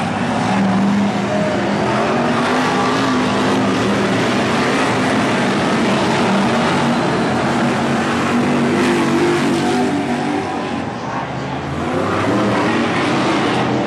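Several BriSCA F1 stock cars' V8 engines racing past at full throttle, their pitch rising and falling as the cars go by and accelerate, with a slight lull about eleven seconds in.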